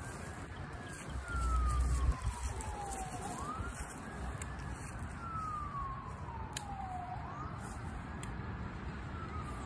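Emergency vehicle siren in a slow wail, each cycle rising quickly and then falling slowly in pitch, repeating about every three and a half seconds. A brief low rumble about a second in is the loudest sound.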